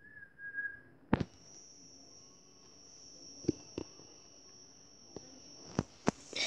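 A phone being handled: several sharp taps and knocks against the phone, over a faint steady high-pitched whine that starts about a second in.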